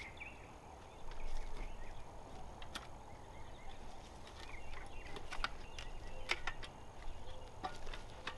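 Faint bird calls: short chirps and poultry-like calls, with a few sharp ticks scattered through.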